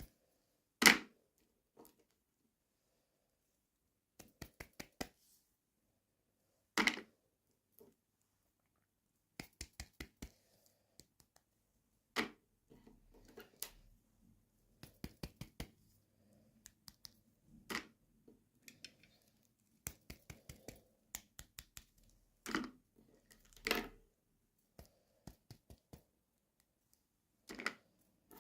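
Hands unboxing and handling small plastic toy pieces and packaging. Runs of quick light clicks come every few seconds, with a few louder knocks, the loudest about a second in.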